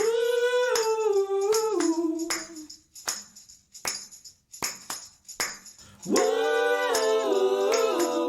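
Background music: a sung melody of long held notes stepping downward in two phrases, with a few sharp percussion hits, tambourine-like, in the gap between them.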